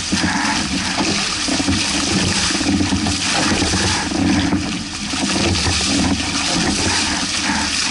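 Steady rush and splash of water along the hulls of a Hobie 16 catamaran sailing fast through choppy waves.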